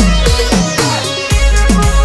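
Instrumental stretch of a DJ remix of a Gujarati folk song, without vocals: a fast electronic beat of drum hits that drop sharply in pitch over a heavy bass.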